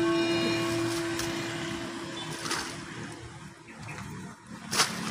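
Background music with a sustained tone fades out over the first two or three seconds. Then comes faint sloshing of muddy water and wet soil as hands work in a flooded grave pit, with one sharp click near the end.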